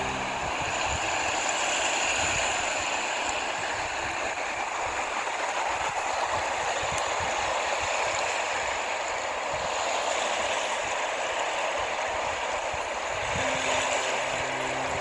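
Steady rushing noise with an irregular low rumble beneath it. An engine's steady hum comes back about two seconds before the end.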